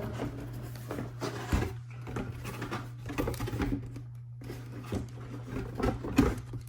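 LEGO parts bags and plastic pieces being handled and set down on a table: irregular clicks, rustles and light knocks, with a sharper knock about six seconds in, over a steady low hum.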